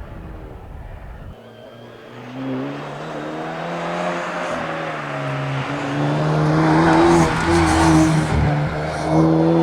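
Rally car engine approaching at speed under hard throttle, its note climbing and growing steadily louder, loudest about seven seconds in with some tyre noise.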